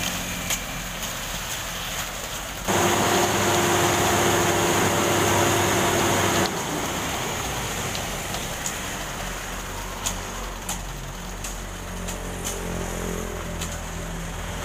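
Concrete mixer truck's diesel engine running steadily as the drum discharges concrete down the chute, with scattered short clicks. From about three seconds in to about six and a half seconds the engine is much louder, with a steady hum, then drops back abruptly.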